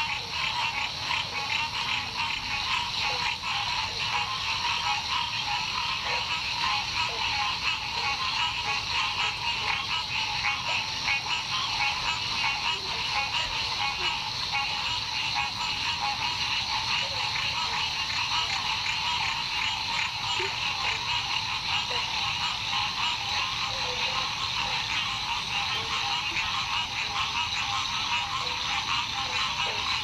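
Dense, steady chorus of frogs, many fast pulsing calls overlapping into one continuous sound.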